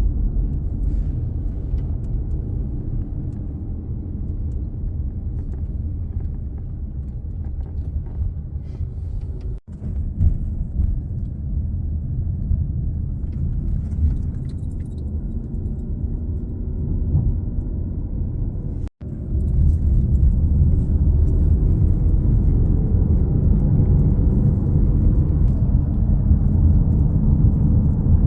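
Strong monsoon wind buffeting the microphone as a loud, continuous low rumble. It cuts out briefly twice and comes back louder after the second break.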